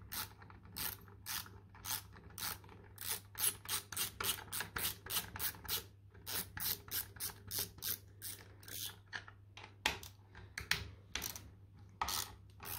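Small hand ratchet clicking as it backs out the stainless steel bolts on a Kinetico water softener's valve head. The clicks come quickly, about four or five a second, in runs with short pauses between turns.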